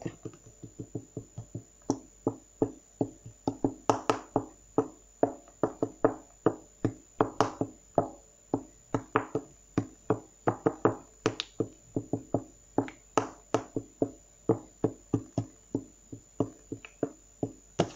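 Fingertips tapping and poking small blobs of slime on a tabletop: quick taps, about three or four a second, some louder than others.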